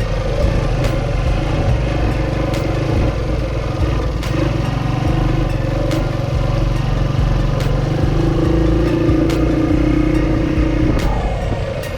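1979 Honda XR80's small single-cylinder four-stroke engine running while the bike is ridden, its pitch climbing under throttle over the second half and dropping as the throttle is backed off about a second before the end.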